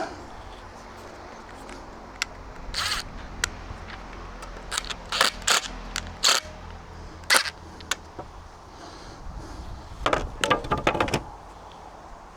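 Short scrapes and sharp clicks of hand work on timber, staples being pried out of the wood one at a time, with a cluster of quicker scrapes near the end.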